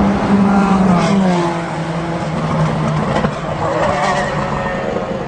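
Sports-prototype and GT race car engines at speed on the front straight; one car's engine note drops in pitch as it passes about a second in, and another car's engine follows a couple of seconds later.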